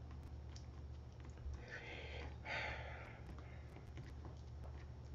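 Quiet room tone with a steady low hum, a few faint light clicks, and a soft hissing rustle about two to three seconds in.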